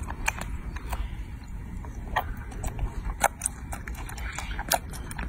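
Baby monkey eating grapes: irregular small wet clicks and smacks of chewing and of grapes being picked from the bunch, over a steady low rumble.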